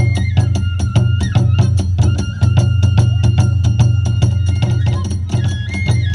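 Kagura hayashi ensemble playing a fast, even beat: drums with quick hand-cymbal strokes about five a second, under a flute holding high, steady notes.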